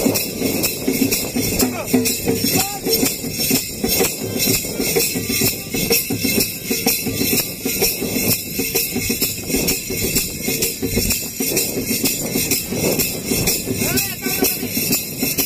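Loud dance song with a singing voice over a steady jingling, tambourine-like beat, played through a horn loudspeaker.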